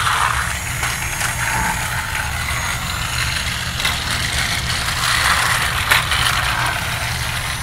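Battery-powered TrackMaster toy trains running on plastic track: a steady whir of small electric motors and gears, the trains fitted with faster replacement motors.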